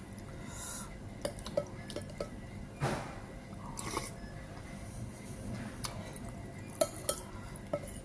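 A spoon clinking and tapping against a plate while eating, in scattered single clinks, the sharpest near the end. Two short noisy sounds about three and four seconds in.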